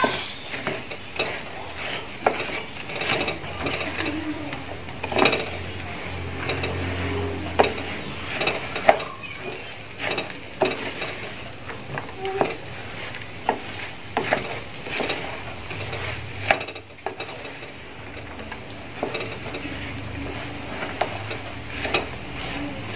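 Wooden spatula stirring fried boondi (gram-flour pearls) through hot sugar syrup in a pan, with irregular knocks and scrapes of the spatula against the pan and some sizzling.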